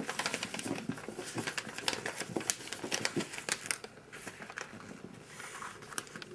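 A sheet of paper being folded and creased by hand: rustling and crinkling with many quick, sharp crackles, busiest for the first four seconds and then quieter.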